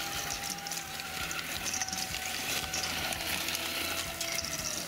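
Radio-controlled model car driving on gravel: its motor gives a steady whine that dips slightly about four seconds in, over the crunch and scatter of its tyres on the loose gravel.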